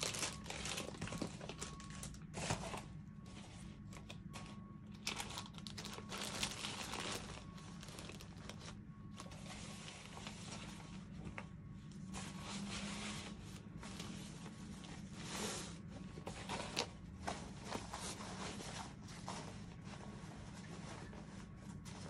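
Rustling and crinkling of plastic and fabric as a clear plastic toiletry bag, clothes and other items are handled and stuffed into a foldable fabric duffle bag, in irregular bursts with louder crackles every few seconds.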